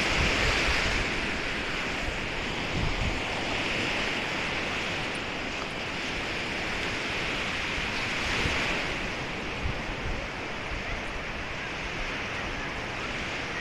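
Lake Michigan surf washing onto a sandy beach, a steady hiss that swells and eases every few seconds, with wind buffeting the microphone.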